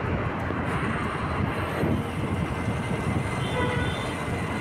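Wind rushing over the microphone with engine and road noise from a moving motorbike, at a steady level.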